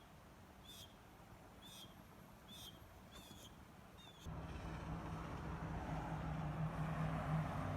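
A bird chirps about once every 0.8 s, a short call repeated five or six times. About four seconds in the sound changes abruptly to a louder, steady engine or motor drone.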